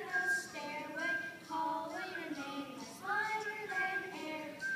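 Children singing a song together, with long held notes.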